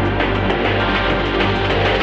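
Background music with a steady deep bass under a dense, full texture.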